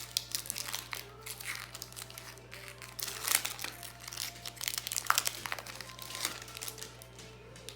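Foil Pokémon booster pack wrapper crinkling in irregular crackles as it is handled and pulled open.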